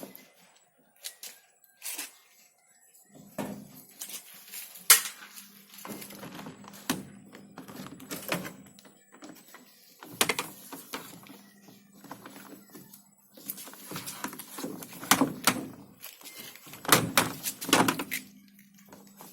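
Irregular knocks, clicks and clattering of parts being handled and pulled loose while a top-loading washing machine is dismantled, with a faint steady hum underneath.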